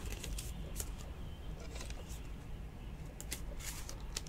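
Faint clicks and light plastic rustling from trading cards and their clear plastic sleeves and holders being handled, over a low steady hum.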